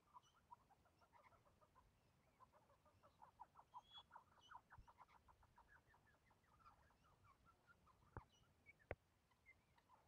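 Australian king parrots calling faintly, a soft chatter of short notes that quickens into a run of about five notes a second in the middle, with a few higher chirps. Two sharp clicks near the end.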